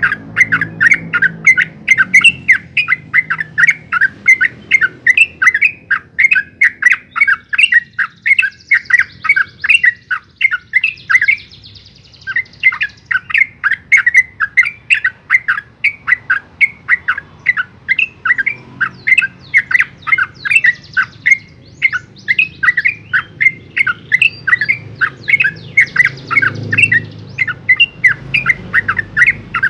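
Yellow-vented bulbul singing a long, rapid run of sharp repeated notes, several a second, with one short break about twelve seconds in.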